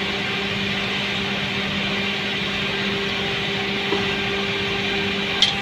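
Steady drone of running plant machinery with a constant low hum. A tool knocks lightly on metal about four seconds in and again more sharply near the end.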